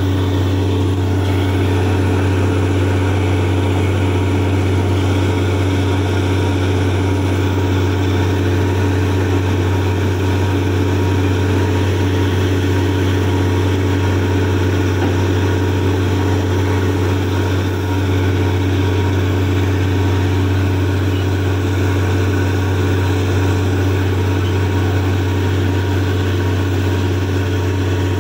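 Truck-mounted borewell drilling rig's engine running at a steady low drone, without change.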